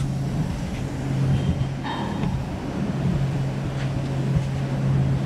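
Steady low hum of machinery running in a workshop, over a general rumble, with a brief higher-pitched sound about two seconds in.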